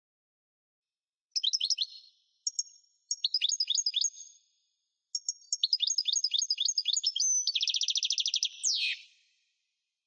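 European goldfinch singing: four bursts of quick, high twittering notes starting about a second and a half in, the last and longest running into a fast buzzy trill and ending on a sharp falling note.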